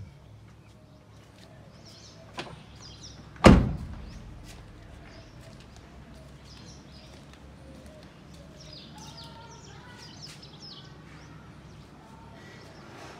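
A car door slammed shut once, a single heavy thump about three and a half seconds in, a light click coming about a second before it. Faint bird chirps follow over a low steady background.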